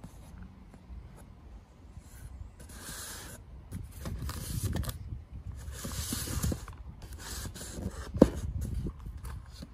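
Utility knife scraping and slicing at a taped cardboard box in several strokes, with a sharp click about eight seconds in.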